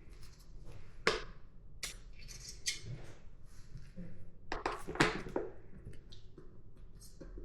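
Irregular clinks and knocks of metal parts and tools being handled, the loudest about a second in and again about five seconds in.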